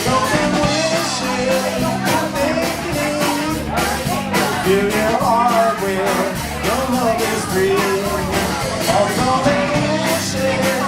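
Live rock band playing, with drums keeping a steady beat under guitar and a wavering melody line.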